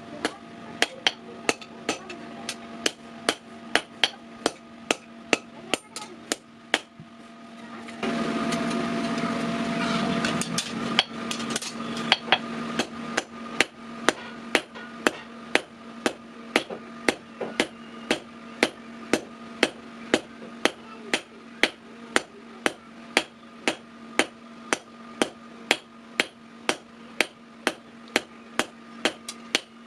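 Hand hammer striking steel on an anvil in a steady rhythm, about two blows a second, with the metal ringing between blows, as a sickle blade is forged. About eight seconds in, a louder rushing noise joins the hammering for about three seconds.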